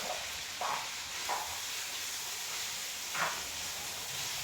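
Onions and peppers sizzling in a pot with a steady hiss, and a few short scrapes of a utensil stirring against the pot, the loudest about three seconds in.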